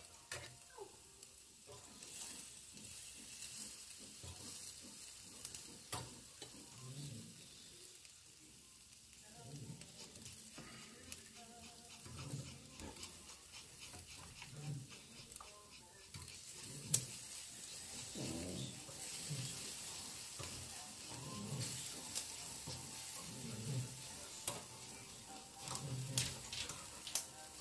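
Meat sizzling on a tabletop grill grate, with sharp clicks of metal tongs as the pieces are turned. A soft low sound recurs about every second and a half in the second half.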